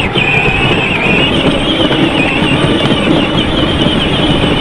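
Kids' electric ride-on John Deere Gator toy driving along a dirt trail with a load of logs: a steady high whine from its electric motors and gearboxes over rough noise from the wheels.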